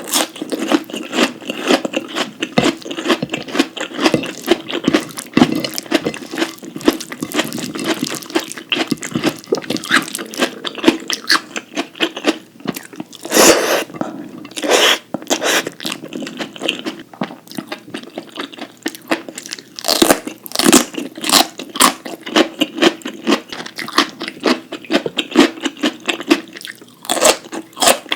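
Close-miked eating sounds: a person crunching and chewing mouthfuls of food, with sharp crunches coming several times a second and a couple of louder bites about halfway through.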